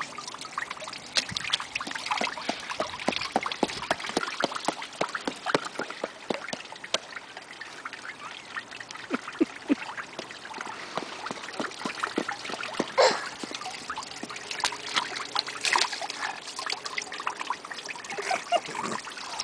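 Rainwater trickling and dripping into a street storm drain, a continuous patter of small drips, with a louder splash about thirteen seconds in.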